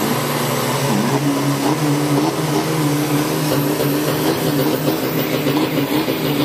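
Race-built Isuzu D-Max 3.0 turbo-diesel pickup engine running loudly, its revs wavering slightly up and down.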